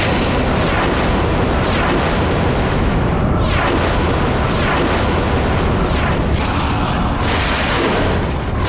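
Dramatic TV-serial sound effects: a continuous heavy rumble with booms, overlaid by a series of falling whooshes about once a second.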